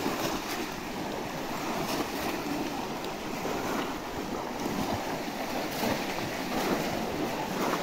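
Many people wading and splashing through shallow muddy water as they plunge bamboo fishing baskets into it: a continuous churning splash with sharper splashes now and then.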